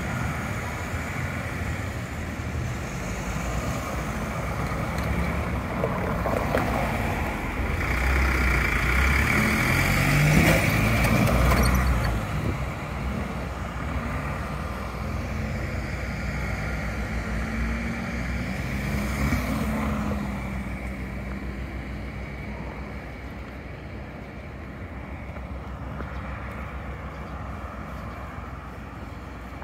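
A heavy vehicle's engine running, loudest about ten seconds in and then slowly fading away.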